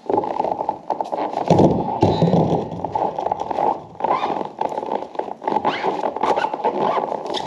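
Steel rebar lengths knocking and scraping against each other and the concrete forms as they are handled, in an irregular run of clanks and rattles.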